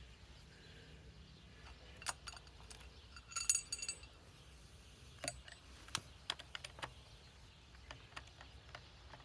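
Faint scattered clicks and light handling knocks, with a brief metallic jingle of clinks about three and a half seconds in.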